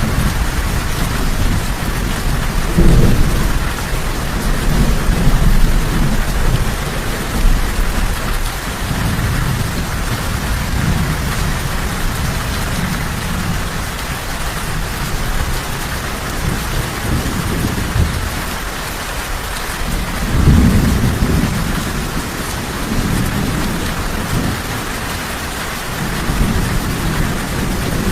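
Steady heavy rain, with thunder rumbling low underneath that swells about three seconds in and again about twenty seconds in.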